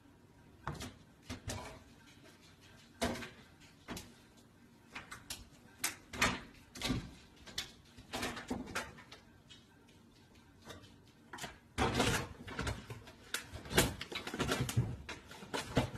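Irregular knocks, taps and scrabbling as a cat clings to an open cupboard door above a microwave, its claws and body bumping the wooden cabinet and the microwave. The knocks come sparsely at first and crowd together near the end.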